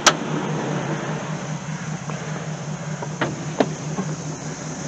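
A door shuts with one sharp knock, then a steady low hum like a vehicle or machine running, with two light taps about three seconds later.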